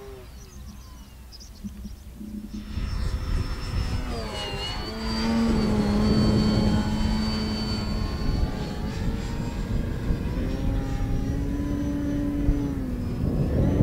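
Electric motor and propeller of an Avios Grand Tundra RC bush plane flying on a six-cell battery: a buzzing whine that gets louder about three seconds in and dips in pitch around four to five seconds in, with wind noise on the microphone.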